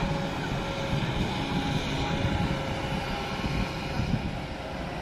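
Diesel engine of a Kobelco SK200 hydraulic excavator running in a steady low drone as it digs mud out of a river channel, with a short knock right at the start.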